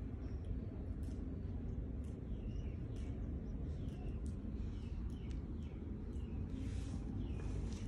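Small birds chirping in the background, many short high calls scattered throughout, over a steady low hum.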